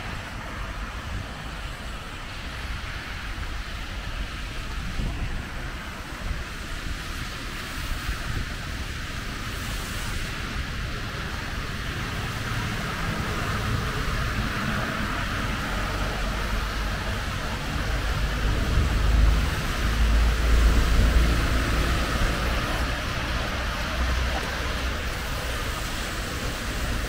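Steady hiss of heavy rain, with wind buffeting the microphone and a louder low rumble swelling about two-thirds of the way through.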